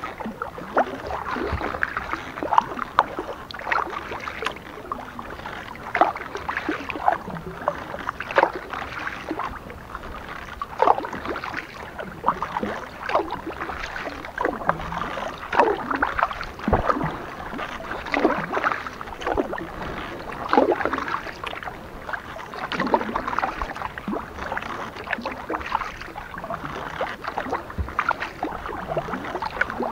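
Kayak paddle strokes in water, a steady rhythm of dips about every one and a half to two seconds, with water splashing and trickling between them.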